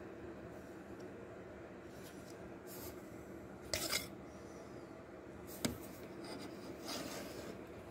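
Benchmade SOCP dagger drawn from its molded plastic sheath: a short scrape and clicks about four seconds in, one sharp click a couple of seconds later, and soft rubbing of handling near the end, over a faint steady hum.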